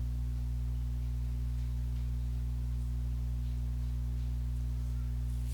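Background music: a steady, low sustained drone that holds unchanged throughout.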